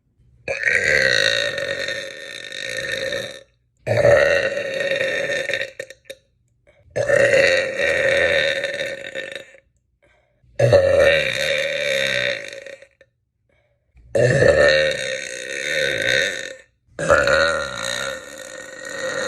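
A woman burping six times in a row: long, loud, drawn-out burps of two to three seconds each, each held at a fairly steady pitch, with short silences between them.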